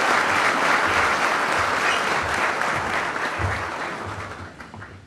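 Audience applauding in a hall, the applause fading away near the end.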